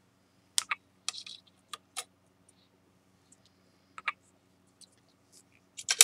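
Broken ceramic cup pieces clicking against one another and the tray as they are handled and set down: a few sharp clicks in the first two seconds, two more about four seconds in, and a quick cluster near the end.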